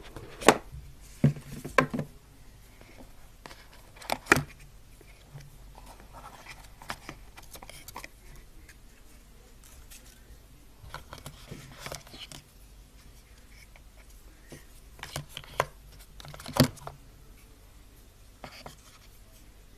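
Handling sounds of a smartphone being unboxed: sharp taps and knocks of the phone and the cardboard box and tray against a table, with a short stretch of paper and packaging rustling midway. The knocks come in scattered groups: several in the first two seconds, one about four seconds in, and a few more near the end.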